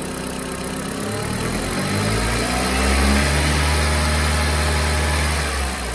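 Chery SQR481FC 1.8-litre four-cylinder petrol engine held at raised revs. About two seconds in the revs climb higher and hold steady, easing off near the end.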